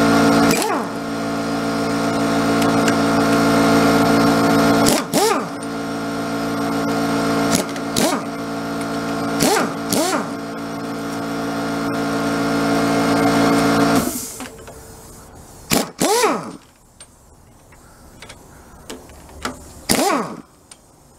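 A motor runs with a steady, even-pitched hum that swells and drops back several times, then cuts off about fourteen seconds in. Short squeaky sounds that dip in pitch come every few seconds throughout.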